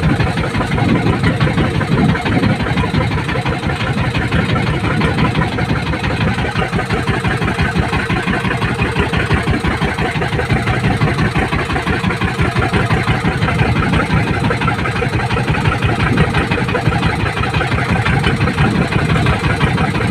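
Small boat engine running steadily at an even pace.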